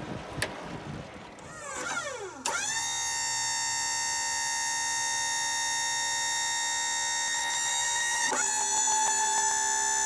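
Wood-Mizer sawmill's hydraulic pump whining steadily as the control levers cycle the hydraulics back and forth, working air out of the freshly topped-up system. The whine comes in with a falling sweep about two seconds in, then holds one pitch, with a brief dip and change of pitch near the end as a lever is switched.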